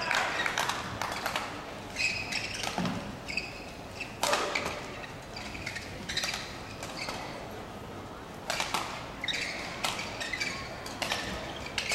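Badminton hall ambience: scattered sharp racket-on-shuttlecock hits and short high squeaks of shoes on the court mats, with faint voices in a large echoing hall.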